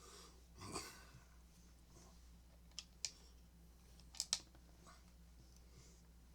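Faint handling sounds on a workbench: a short scrape about a second in, then a few sharp small clicks around the middle, two in quick succession, over a low steady hum.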